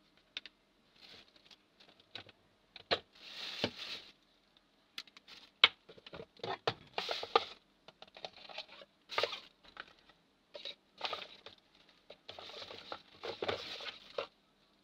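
Hands handling a 3D printing pen and its cable against a surface: irregular rustling, with scattered sharp clicks and taps.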